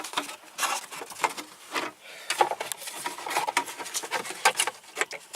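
Irregular clicks, taps and rubbing of plastic steering-column parts being handled and worked loose by hand.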